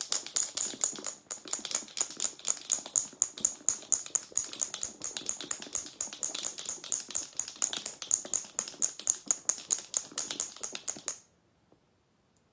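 Two marbles clicking and rattling inside a jar of 33% cream shaken hard by hand, about five clicks a second, early in churning butter while the cream is still liquid. The shaking stops about eleven seconds in.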